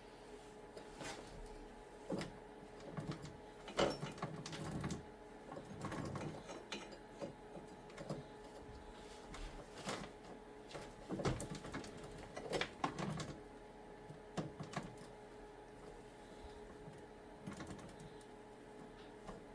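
Steel roller chain (number 41) clinking and rattling as it is worked by hand around the snowblower's drive sprockets, irregular clicks and knocks, over a faint steady hum.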